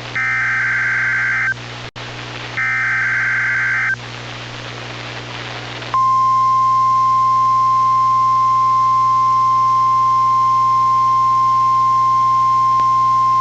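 NOAA Weather Radio emergency alert signal received over the radio: the last two of the SAME header's three buzzy data bursts, each about a second and a half long and a second apart, with radio hiss between them. About two seconds later the steady 1050 Hz warning alarm tone starts, a single loud unwavering tone.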